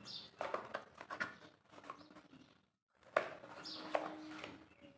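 Small cardboard box being handled and opened, with its wireless microphone case slid out: irregular rustling, scraping and light knocks of packaging, broken by a moment of quiet about halfway through.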